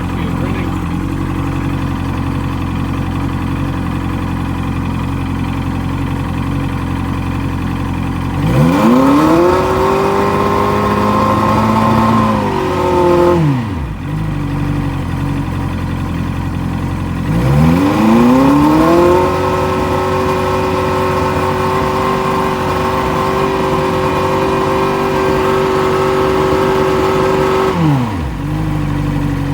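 Boat's outboard engine idling, then revved up and held for a few seconds before dropping back to idle. It is revved again about halfway through, held about ten seconds, and falls back to idle near the end.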